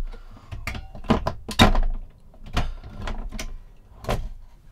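Roof hatch above a truck camper's cab-over bunk being pushed open and climbed through: a run of knocks and clunks from the hatch frame and the camper body, the loudest about one and a half seconds in.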